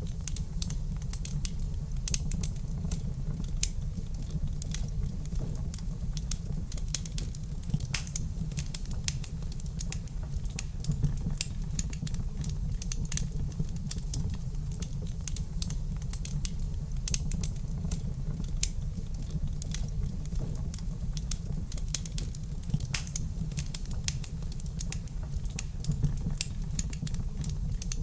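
Wood fire crackling in a fireplace: dense, irregular small pops and snaps over a steady low rumble.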